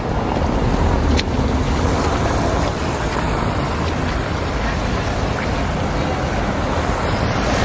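Wind blowing across the microphone: a steady, loud rushing with a deep rumble.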